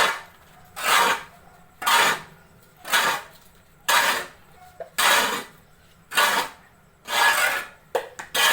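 Rhythmic scraping strokes through sawdust mixture, about one a second, each short and evenly spaced: a tool working the mushroom growing medium.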